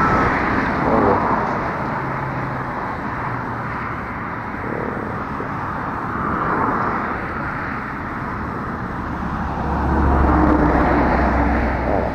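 Highway traffic going past: a steady rush of tyres and engines that swells as vehicles pass about six seconds in and again around ten seconds in, the second pass with a deep engine drone.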